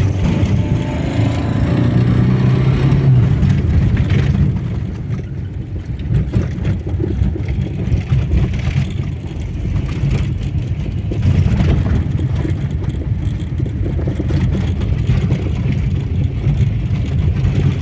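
Engine of a VAZ-2101 Zhiguli running, not yet fully warmed up; its sound eases off for a few seconds mid-way and picks up again about eleven seconds in, as with changing revs.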